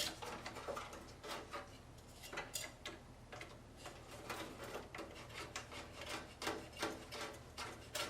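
A hand screwdriver turning a motherboard screw into a metal standoff: a run of small clicks and scrapes, settling into an even ticking of about two or three a second in the second half.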